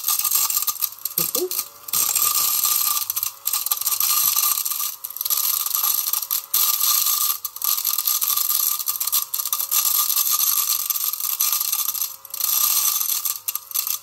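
Small AA-battery mini desk vacuum with a narrow nozzle running with a steady whine and hiss, rice grains rattling and clicking as they are sucked up. The motor noise drops away briefly several times.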